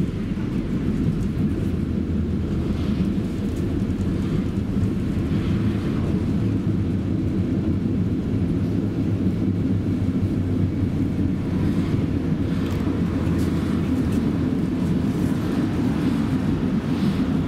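Steady low running rumble of a city public-transport vehicle heard from inside the cabin as it travels.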